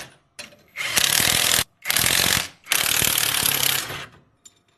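Ratchet wrench clicking rapidly in three runs, the longest near the end, as bolts are undone to take out an electric tricycle's half shaft.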